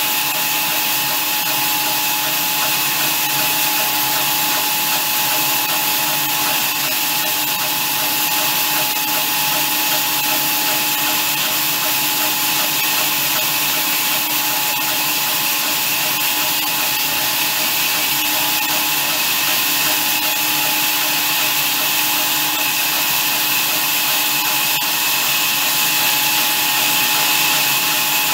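Horizontal band sawmill running, its band blade cutting lengthwise through a large log. A steady whine over a hiss with no breaks, getting slightly louder near the end.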